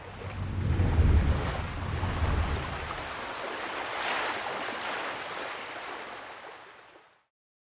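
Ocean surf washing, with wind buffeting the microphone as a heavy low rumble through the first few seconds. The sound swells in over the first second and fades away about seven seconds in.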